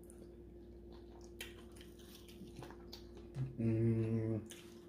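Quiet table with a few faint clicks from eating, then about three and a half seconds in a man's short, steady hummed "mmm" lasting under a second, over a faint steady background hum.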